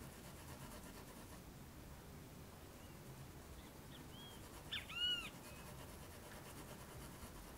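Quiet room tone with a short animal call about four to five seconds in: a few brief chirps that rise and fall in pitch, the middle one louder and fuller.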